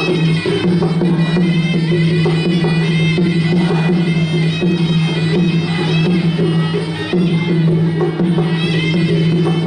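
Traditional Khmer boxing ring music: a shrill, reedy sralai oboe playing a wavering melody over a steady low tone, with drums keeping time.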